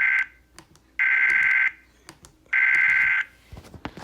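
Emergency Alert System SAME digital data bursts, the end-of-message code that closes the alert. The first burst ends just after the start, then two more identical buzzy bursts of two-tone data follow, each under a second long and about a second and a half apart. A few faint clicks come near the end.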